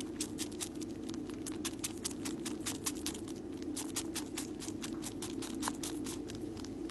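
Kitten purring close to the microphone, a steady low throbbing hum, with many quick irregular clicks over it from the kitten suckling on its paw.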